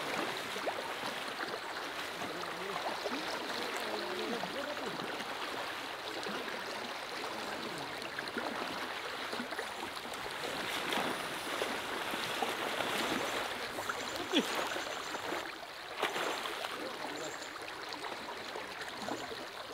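Fast river current rushing steadily, with a couple of sharp knocks about three quarters of the way through.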